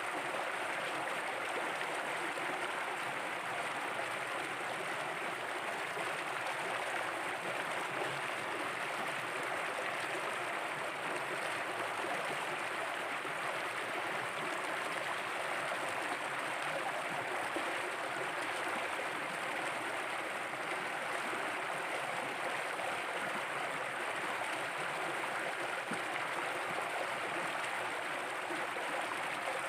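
Shallow rocky stream flowing, a steady, unbroken sound of running water.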